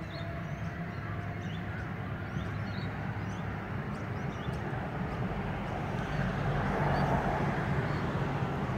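Electric multiple unit passenger train pulling away from a station and drawing closer: a low, steady hum and rumble of motors and wheels that grows gradually louder, with a faint rising whine near the start.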